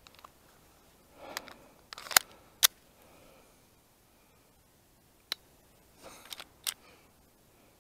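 Sharp metallic clicks from a Glock 19 fitted with an Advantage Arms .22 LR conversion kit. The trigger is pulled and the slide worked while a rimfire round fails to fire: repeated misfires, the primer struck without going off. A few clicks come about two seconds in, the loudest, and a few more near the end.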